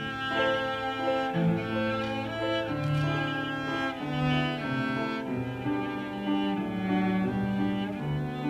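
Cello bowed in a melodic line of held notes that change pitch every half second to a second, accompanied by grand piano.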